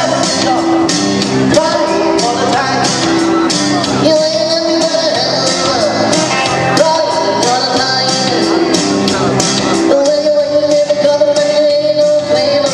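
Rock and roll song with singing over electric guitar and a steady drum beat, the singer holding long notes.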